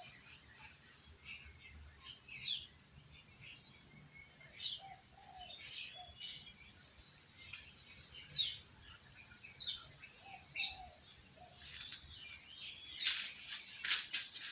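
Steady high-pitched drone of insects, with a bird repeating short downward chirps every second or two and a lower two-note call now and then. A few sharp clicks come near the end.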